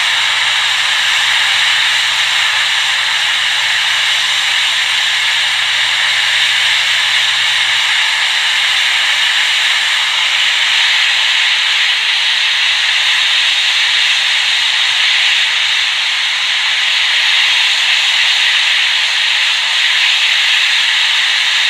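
Hot air rework station blowing a steady hiss of hot air onto the iPhone 6 Tristar chip, reflowing its solder so the chip seats on its pads. A faint low hum runs under the hiss until about a third of the way through.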